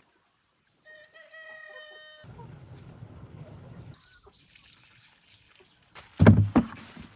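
Chickens: a rooster crows once, a steady call of a little over a second, with farmyard fowl clucking. Near the end there are two loud, close knocks.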